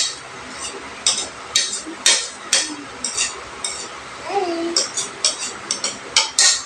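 Spoons and forks clinking and scraping against bowls and plates while eating, in a quick, uneven run of short sharp clicks. A brief voiced sound comes about four seconds in.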